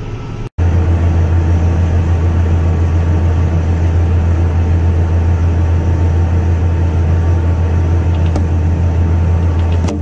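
Tractor engine running steadily at working speed, heard from inside the cab as a loud, even low drone. It cuts in sharply about half a second in.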